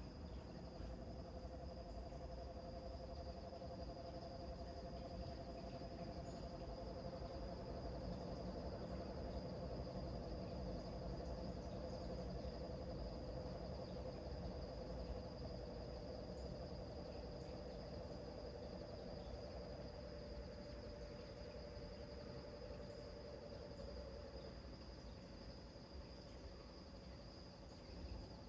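Crickets chirping steadily in a continuous high-pitched chorus. Underneath, two steady lower-pitched tones drone on and fade out about twenty and twenty-four seconds in, over a constant low rumble.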